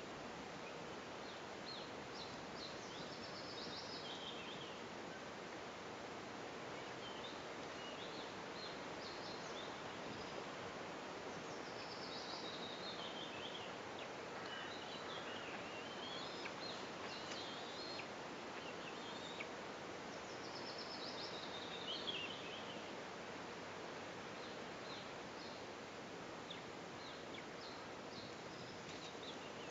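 Steady outdoor background hiss, with a small songbird singing a short descending phrase about every eight to ten seconds and a few faint chirps in between.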